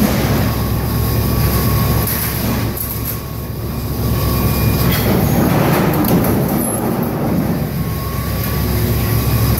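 200-ton Niagara SC2-200-144-30 mechanical punch press running, a loud, steady heavy rumble with a low hum underneath and a faint high whine that comes and goes.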